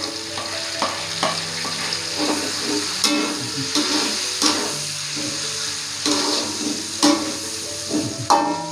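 Chopped chilies, garlic, shallots and ginger sizzling as they drop into hot oil in a wok, with a metal spatula scraping and knocking against the wok as they are stir-fried. The sizzle starts suddenly at the beginning.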